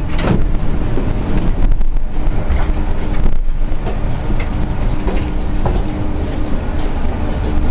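Airport shuttle train at a stop with its doors open, passengers stepping off: a steady low rumble and hum with scattered light knocks.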